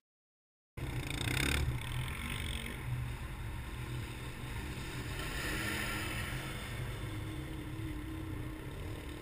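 Silent for a moment, then a steady low rumble of distant ATV and SUV engines mixed with wind, muffled as heard by a camera mounted on a vehicle's hood.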